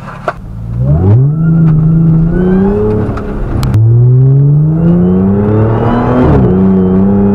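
Audi's engine under hard acceleration, heard from inside the cabin. The revs climb sharply about a second in, drop briefly at an upshift about three and a half seconds in, climb steadily again, and drop at a second upshift near the end.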